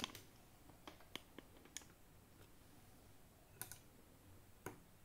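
Faint, irregular small clicks and taps over near silence, about eight in all, including a quick double click about three and a half seconds in.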